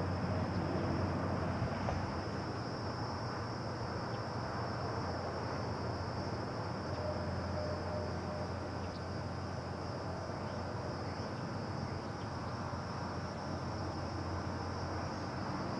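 Insects calling in a steady, unbroken high-pitched drone, over a low steady hum.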